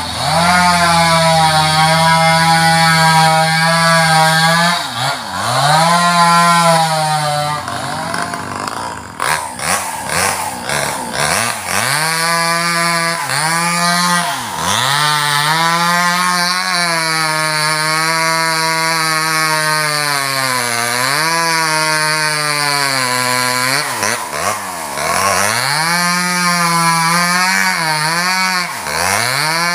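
Two-stroke chainsaw cutting into a sengon trunk. The engine pitch dips again and again as the chain loads up in the wood, then climbs back. About a third of the way in, the steady engine note breaks off for a few seconds into rougher sound with clicks, then the saw picks up and cuts on.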